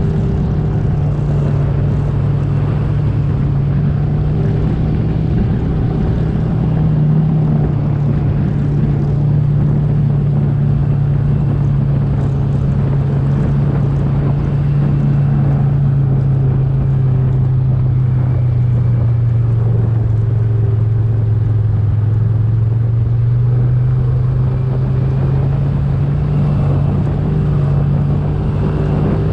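An engine running steadily, its pitch sinking slowly and rising again near the end.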